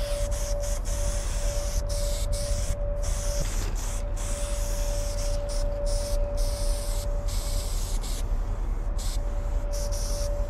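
Aerosol spray-paint can hissing in short strokes broken by brief pauses, as white lettering is sprayed onto a wall. A steady low rumble and a faint constant hum run underneath.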